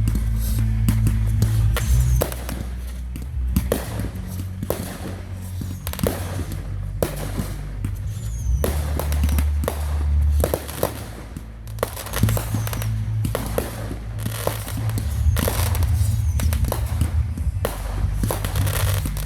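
Fireworks going off in a rapid run of sharp bangs and crackles, over music with a deep bass line.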